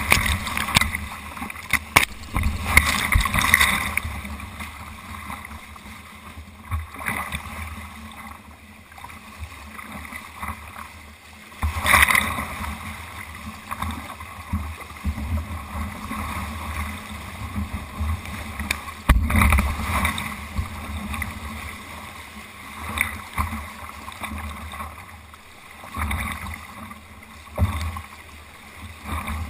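Whitewater rapids rushing around a kayak, with paddle strokes and water splashing over the boat-mounted camera. Several sudden loud splashes break the steady rush, the biggest about a third and about two thirds of the way through.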